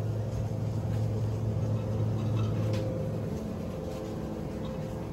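Grocery store ambience: a steady low hum, with a few faint clicks and handling noises.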